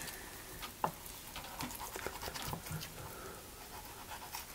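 A knife blade scraping and clicking along a rabbit's ribs as the meat is skinned off them, with faint wet sounds of the flesh on a wooden cutting board.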